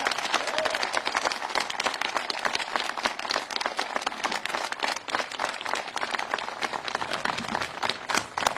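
A crowd applauding: many people clapping at once in a dense, steady patter.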